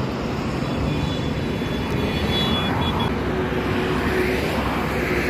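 Expressway traffic passing close by: steady road and tyre noise, swelling as a car goes past about four seconds in.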